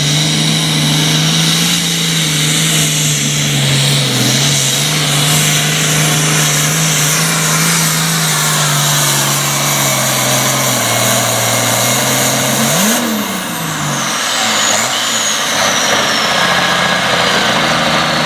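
Super farm pulling tractor's diesel engine running steadily at a fast idle. It gives one quick rev about two-thirds of the way through, followed by a high whine that slowly falls away.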